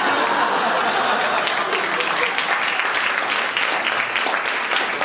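Audience applauding steadily, with voices mixed into the clapping.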